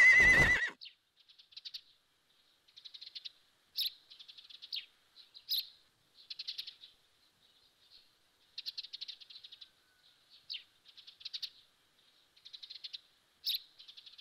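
A horse whinnies briefly right at the start. Small birds then chirp and twitter in short, high clusters for the rest of the time.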